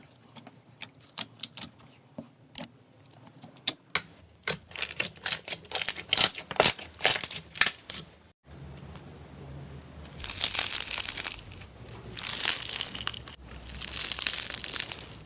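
Slime handled close to the microphone, first as a run of sharp crackling pops that grow denser, then, after a cut, as three longer stretches of crinkling, crunchy squishing.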